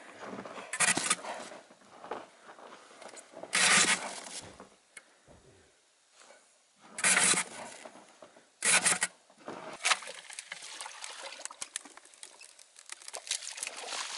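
Short bursts of crunching in packed snow, four louder ones spread through the stretch, with lighter scrapes and ticks in between.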